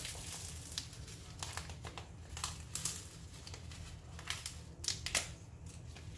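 Plastic food packets crinkling and crackling in the hands as they are squeezed and opened over a bowl. The crackles are irregular, and the sharpest come about five seconds in.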